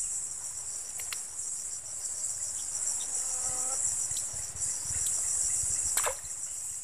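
Steady high-pitched chorus of insects with a fast, even pulsing trill running through it, with a couple of faint clicks.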